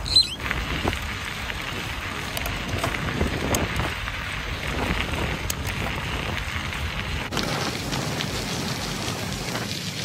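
Bicycle tyres rolling over a dirt and crushed-gravel trail, a steady gritty rush mixed with wind on the microphone. A short, sharp high squeak right at the start is the loudest moment.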